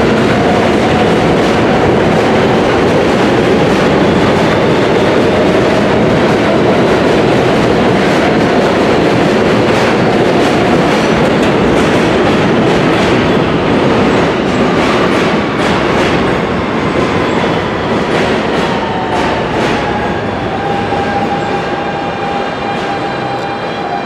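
R160 subway train running past on elevated steel track, a loud steady rumble with wheels clicking over rail joints, easing off after about fourteen seconds. Near the end a whine slides slowly down in pitch as the next train comes in.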